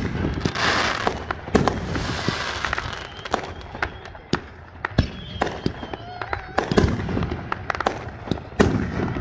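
Aerial fireworks going off: a quick run of sharp bangs as shells burst, with a hiss of sparks in the first few seconds.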